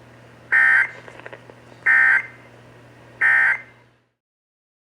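Emergency Alert System end-of-message (EOM) digital data bursts: three short, identical bursts about 1.3 s apart. They sit over a low steady hum on the broadcast audio, which cuts off a moment after the third burst.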